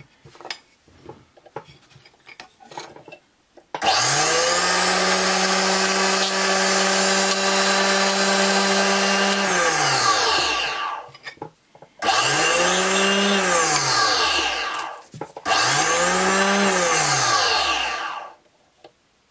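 Bench drill press motor switched on three times, spinning a homemade pin in its chuck while it is filed thinner: one run of about six seconds, then two short runs of a couple of seconds each. Each run spins up and winds down with a falling pitch. A few light handling clicks come before the first run.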